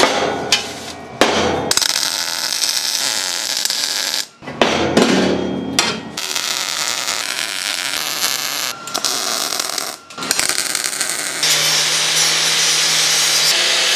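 Sheet-steel chimney parts clank and knock as they are handled. Stretches of steady harsh noise come between the knocks. In the last couple of seconds an angle grinder runs with a steady hum, grinding the steel.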